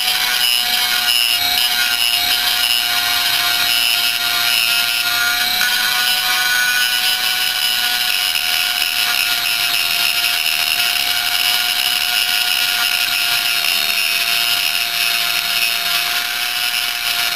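High-speed rotary tool with a 1/8-inch single-cut carbide burr grinding inside a two-stroke cylinder's transfer port: a steady, unchanging whine with a grinding hiss over it as the burr cuts the port wall.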